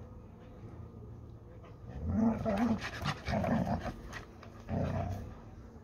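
Hungarian Vizsla and yellow Labrador Retriever play-growling while tugging at a ball between their jaws, in three short bursts about two, three and five seconds in.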